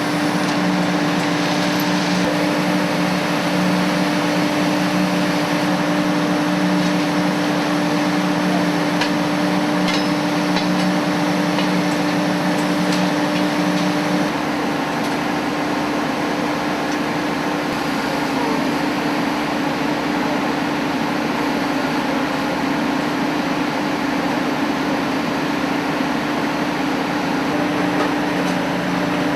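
Steady running machinery: a constant hum under a wide noise. About halfway through, the hum abruptly changes pitch and the lower tone drops away.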